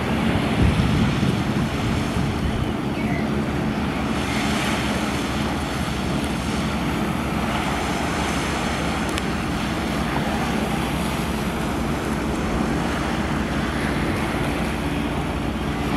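Steady wind noise on the microphone over open water, with the low, even drone of a boat's engine underneath.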